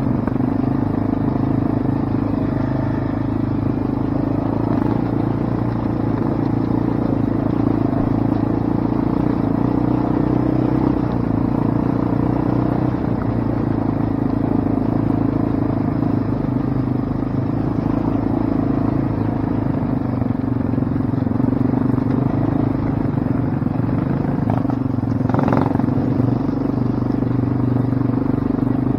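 Quad (ATV) engine running steadily at an even pitch while riding, with one short knock near the end.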